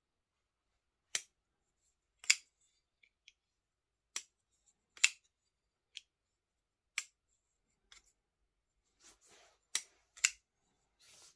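WESN Allman titanium frame-lock flipper knife being flicked open and shut over and over: about eight sharp metallic clicks, some seconds apart, as the blade snaps out and locks and is closed again, with softer scraping sounds near the end.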